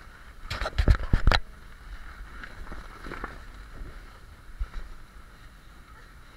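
A quick cluster of thumps and scuffs about half a second to a second and a half in, then quieter scattered scuffing, as the camera-wearer crawls over an inflatable obstacle course and the camera knocks and rubs against the inflated vinyl. A steady low rumble runs underneath.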